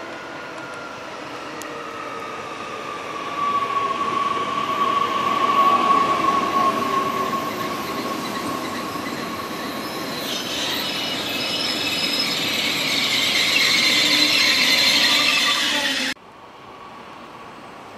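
A train running on the rails with a steady wheel squeal that sinks slightly in pitch, growing louder in two swells. It cuts off suddenly about sixteen seconds in, leaving only a quieter background.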